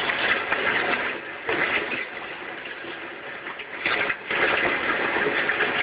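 Electric meat grinder running, forcing ground meat out through its cutting plate: a steady mechanical grinding noise that dips a little in the middle and picks up again about four seconds in.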